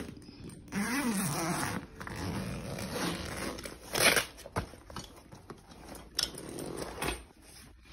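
Zipper of a Klein Tools tool backpack being pulled open in long rasps, then the fabric bag being handled and folded open, with a few sharp knocks.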